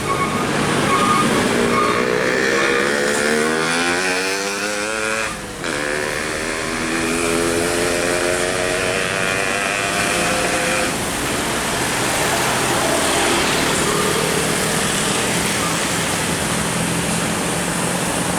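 Road traffic with a vehicle engine climbing in pitch for about three seconds, then dropping away sharply a little after five seconds in. Steady engine and road noise from passing vehicles follows.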